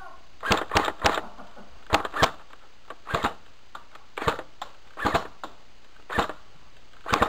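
Tokyo Marui AUG A2 airsoft electric gun firing single shots, about a dozen sharp cracks at uneven intervals, some in quick pairs.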